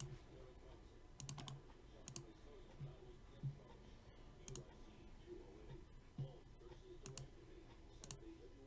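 Faint, scattered clicks of a computer keyboard and mouse, a single click or a quick pair every second or so.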